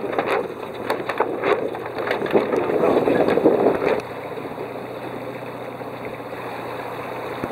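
Wind buffeting the microphone over the rush of water along the hull of a sailboat under sail. It is gusty and louder for about the first four seconds, then settles to a quieter, steadier hiss.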